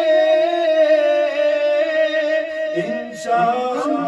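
Men singing an Urdu manqabat without accompaniment. A long note is held with a slight waver, then after a brief dip near three seconds in a new sung phrase begins.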